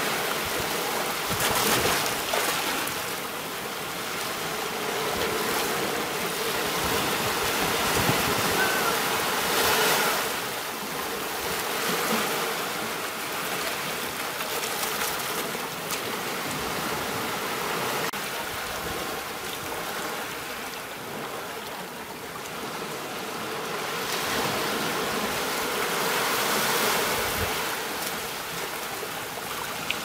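Ocean surf washing ashore: a steady hiss of breaking and receding water that swells as each wave comes in, every several seconds.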